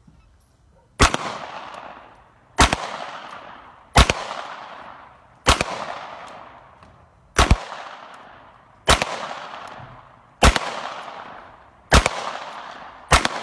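Pistol fired nine times in steady slow fire, about one shot every second and a half, each shot followed by a fading echo.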